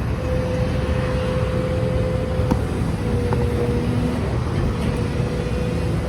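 Engines running: a steady low rumble with a held whine over it that breaks off now and then, and a faint knock or two about two and a half seconds in.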